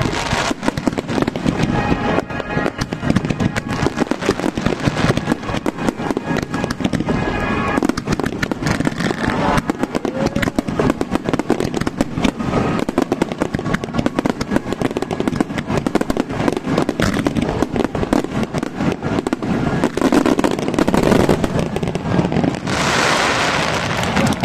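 Fireworks going off in a dense, continuous barrage of bangs and crackling, with music playing alongside.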